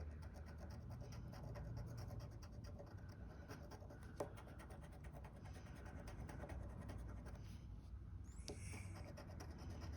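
Faint, quick scraping of the coating being scratched off a paper lottery scratch-off ticket, in rapid short strokes, with a sharper tick about four seconds in and again near the end.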